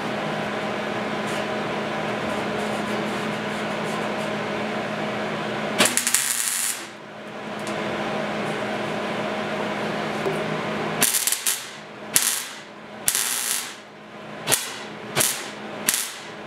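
MIG welder tacking sheet steel: one short crackling burst about six seconds in, then a quick run of five or six short tack welds from about eleven seconds on, each a sharp sizzling crackle. A steady hum runs underneath the first part.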